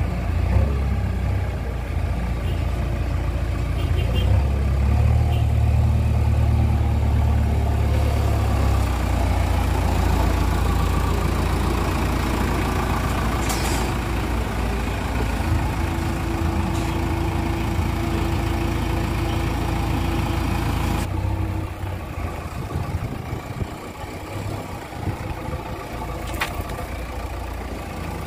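Diesel engine of a JCB 3DX backhoe loader running under load, with a JCB excavator's engine alongside. The engine is louder and deeper for a few seconds early on. A steady higher tone holds for several seconds in the middle, and the sound drops in level about three-quarters of the way through.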